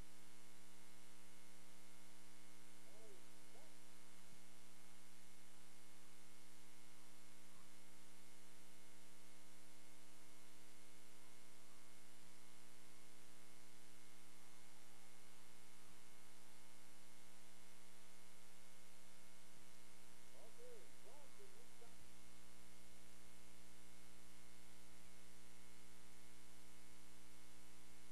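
Steady electrical hum made of several fixed tones over an even hiss, with a deeper hum joining about three-quarters of the way through. No clear game sound comes through, only faint wavering sounds a few seconds in and again near the two-thirds mark.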